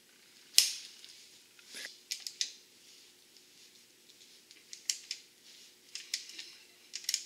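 A ratchet wrench working on the bolts of an ATV's nerf bars: scattered sharp metal clicks and short scrapes, the sharpest about half a second in.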